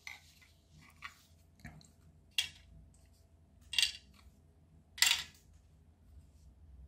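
Small plastic parts of a disassembled toy remote-control handset being handled: a few faint clicks, then three louder short scratchy scrapes over the next few seconds.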